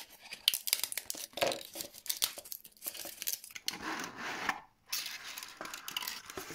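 Support material being broken out of a 3D-printed plastic fuselage part with needle-nose pliers and a screwdriver: an irregular run of small cracks and snaps, with a longer scratchy, tearing stretch about four seconds in.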